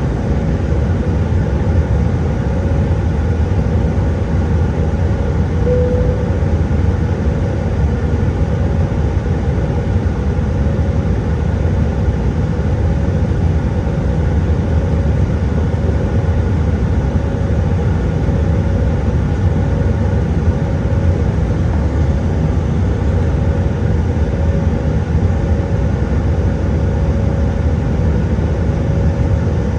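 Steady drone of engine and airflow noise inside the cabin of an Airbus A320-200 in flight, loud and unchanging, with a faint steady hum on top.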